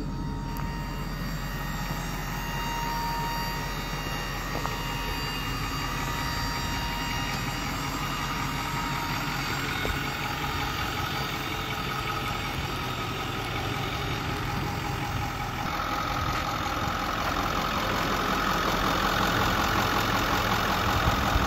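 Ford Power Stroke 6.4-litre V8 turbo diesel idling steadily. Over the last five seconds it grows louder, with a steady whine above the idle.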